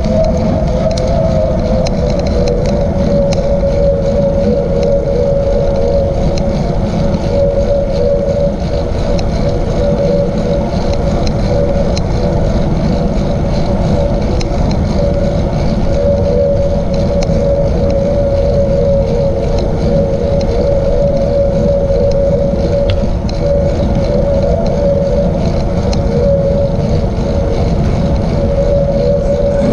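Steady wind rumble on the camera microphone with a constant mid-pitched whine from the ride, moving at about 15 to 17 mph.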